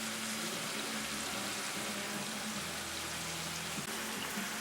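Marinated chicken frying in ghee in a pan, a steady even sizzle.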